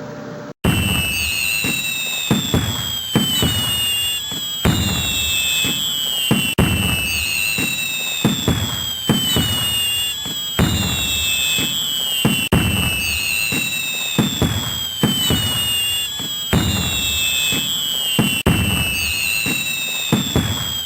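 Fireworks: whistles gliding down in pitch, crackling and low bangs, starting abruptly and repeating in a short loop with hard cuts every few seconds.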